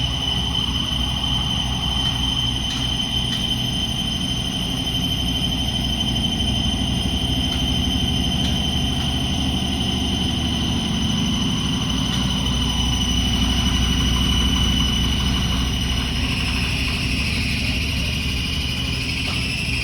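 Hurco CNC milling machine running, a steady high whine over a low rumble; about three-quarters of the way through the whine drops in pitch and wavers.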